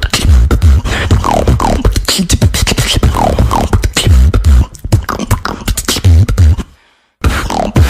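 Beatboxing: fast vocal percussion with heavy bass kicks, sharp clicks and snare hits, and short falling vocal sweeps. It stops dead for about half a second near the end, then starts again.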